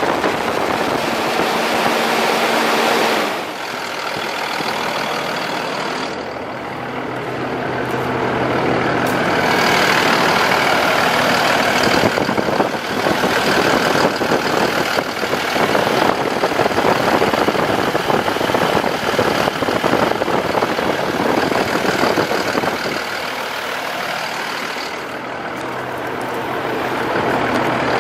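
Kenworth T270's Paccar PX7 diesel engine running, growing louder for a long stretch in the middle and then easing back.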